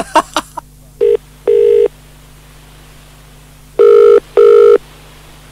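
British telephone ringing tone heard down the line in the double 'brr-brr' cadence: a quieter pair of rings about a second in and a louder pair near the end, as a call waits to be answered. A few short clicks sound at the very start.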